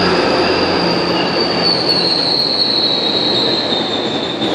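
GO Transit bilevel passenger coaches rolling past, coming in to the station, with a steady rumble of wheels on rail. Over it runs a high, sustained wheel squeal that slowly falls in pitch.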